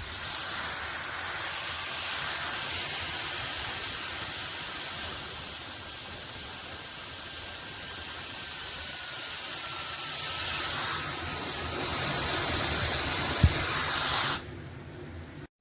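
SUPGALIY mini ionic hair dryer running and blowing air: a steady rush of air with a faint high motor whine. It gets louder about twelve seconds in, a single knock follows, and it stops shortly before the end.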